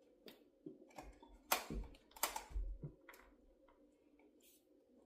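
Scattered light clicks and knocks of a vinyl mini blind's headrail being pushed and worked against its mounting bracket while trying to snap it in, with two louder knocks about a second and a half and two seconds in, then only faint ticks.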